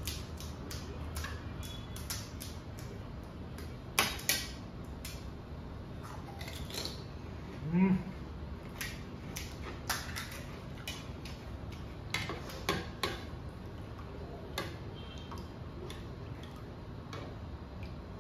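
Scattered clinks and taps of spoons against bowls and plates while pani puris are cracked open and filled, with a short voice sound rising in pitch about eight seconds in.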